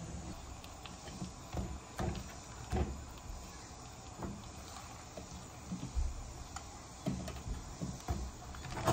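Pieces of peeled garden egg (impwa) dropped by hand into a stainless steel saucepan, landing on the vegetables inside: soft, irregular knocks about a second apart.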